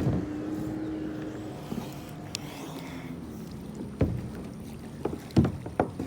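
Kayak being paddled: sharp knocks of the paddle and gear against the kayak about four seconds in and several times near the end. A steady motor hum fades away in the first half.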